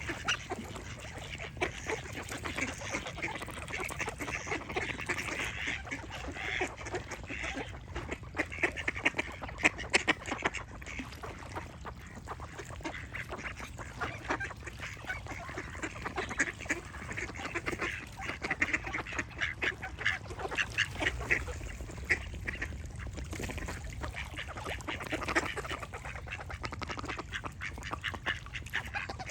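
Ducks quacking continuously, many short calls overlapping, over a low steady background noise.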